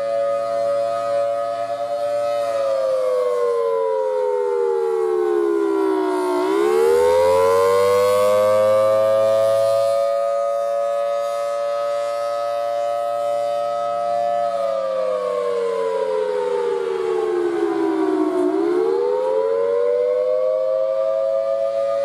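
Federal Signal Thunderbolt 1000T rotating mechanical siren sounding its wail signal: a two-note tone holds steady, slides down over about four seconds, then sweeps quickly back up and holds again. This happens twice.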